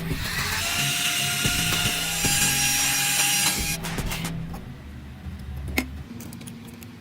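Small handheld power tool running against a part, a hissing grind for about three and a half seconds that then stops, with a sharp click near the end.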